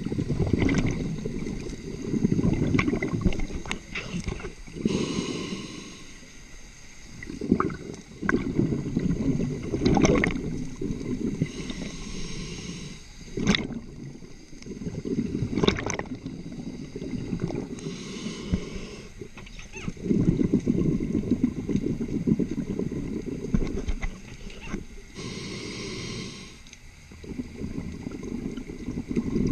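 Scuba diver's own breathing through a regulator, heard underwater. Each breath is a short hiss as air is drawn through the regulator, then a long bubbling rumble as exhaled air leaves it, about four breaths in all.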